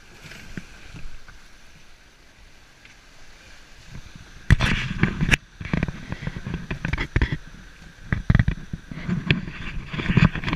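Sailing yacht under way through waves: water rushing along the hull, then from about halfway a run of loud, irregular splashes as waves and spray hit the boat.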